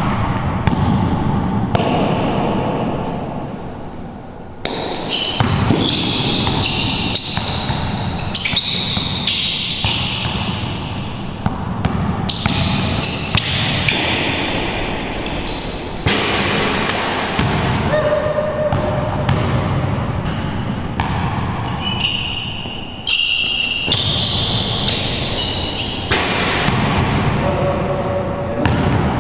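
Basketball dribbled on a hard court floor, a run of bounces echoing off the walls of an enclosed court, with short high sneaker squeaks as the players cut and change direction.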